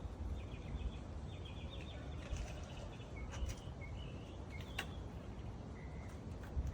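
Small birds chirping in short, repeated calls over a steady low rumble of wind on the microphone, with two sharp clicks in the middle.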